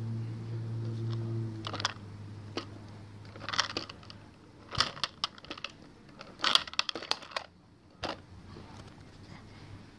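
A low steady hum for the first second and a half, then a series of plastic clicks and rattles as the toy garbage truck's lifting arm raises a plastic toy bin over the truck, tips it and lowers it back down.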